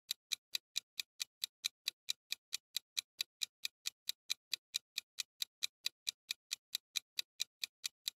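Countdown-timer clock-tick sound effect: short, even ticks at about four a second, keeping time with the on-screen countdown.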